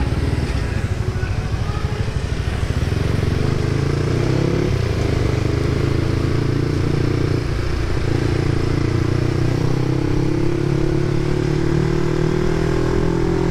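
Motorcycle engine running steadily while riding, over a constant rush of wind and road noise; the engine note rises gradually over the last few seconds as the bike speeds up.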